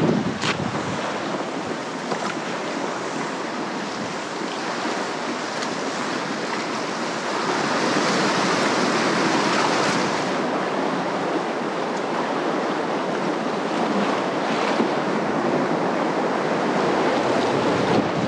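Sea water washing and rushing around the kayak, with wind on the microphone; a steady noise that swells a little about halfway through.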